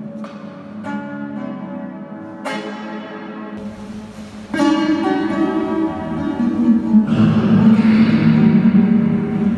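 Plucked string instrument playing a slow melody of single notes that ring and fade. About halfway in, the playing becomes louder and fuller.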